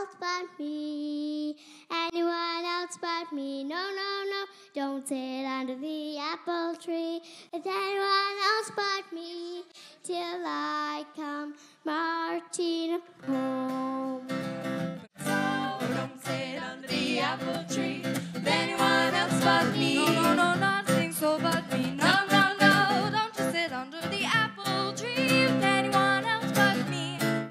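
A young girl sings a melody alone for about 13 seconds. Then acoustic guitar and band accompaniment come in beneath her voice, and near the end an older girl's voice carries the song.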